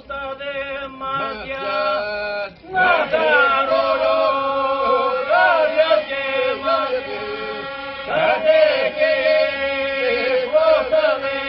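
Men's voices chanting a slow, winding melody over a steady held drone note, with a short break about two and a half seconds in.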